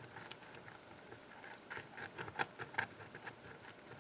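Faint, irregular clicking of a hook pick probing the pin stacks of a Sargent 6-pin lock cylinder under light tension, with a few sharper clicks about halfway through. The plug is in a full set, and each pin is being tested to see which ones are still unset.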